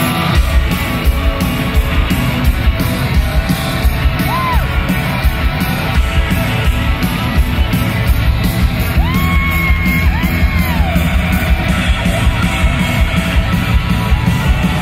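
A rock band playing live: electric guitars and drums, with a voice yelling long high held notes, once about four seconds in and twice more around the middle.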